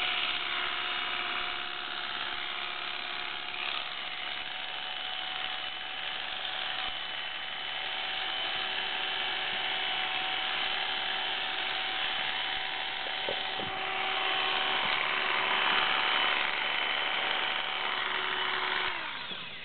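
Electric pet hair clippers running with a steady buzz while shaving a cat's fur. Near the end they are switched off and the pitch falls as the motor winds down.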